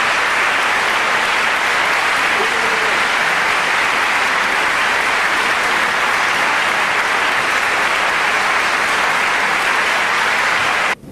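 Audience applauding steadily, a dense even clatter of many hands clapping; it cuts off abruptly near the end.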